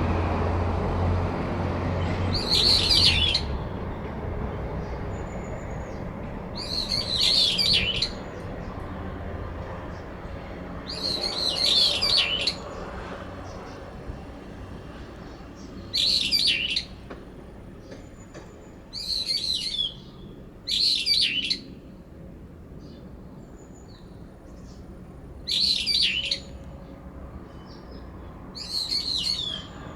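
Brown-eared bulbuls giving loud, shrill calls, about eight in all, a few seconds apart: two birds calling against each other in a territorial dispute.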